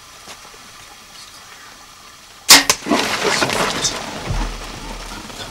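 Bow shot at a red hartebeest: a sharp crack of the release, a second click just after, then the herd bolting in a scramble of hooves that fades over about a second and a half. The arrow hits; the animal is down within 50 yards.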